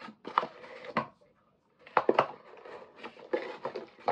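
Cardboard boxes being handled: irregular sharp knocks and rustles, loudest about two seconds in, with a short pause just after the first second.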